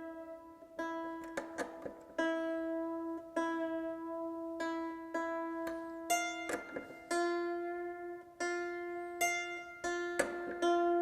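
Hammered dulcimer strings plucked one after another, the same note repeated while it is checked against its matching string by ear during tuning; about seven seconds in the plucking moves to a slightly higher note.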